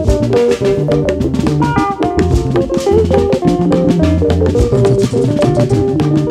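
Live band playing instrumental music. An electronic keyboard carries held chords and melody over a drum kit keeping a steady beat and a low bass line.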